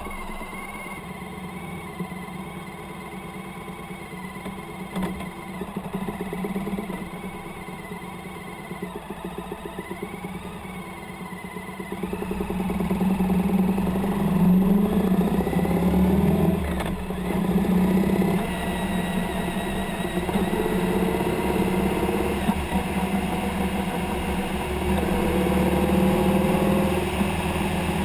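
Motorcycle engine running on the move. It grows louder about twelve seconds in, and near the end its pitch climbs several times as it accelerates through the gears.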